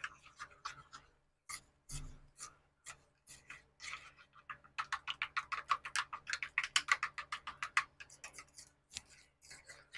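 Steel spoon beating a thin maida-and-water batter in a plastic bowl, scraping and clicking against the sides. The strokes are irregular at first, then a fast even run of about eight strokes a second from about halfway, slowing again near the end.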